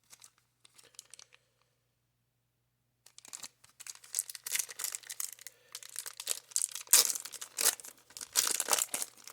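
Wax-paper wrapper of a 1990 Score baseball card pack being torn open and crinkled. A little faint rustling comes first, then a short pause, and from about three seconds in the last six seconds are filled with loud, irregular crackling and tearing.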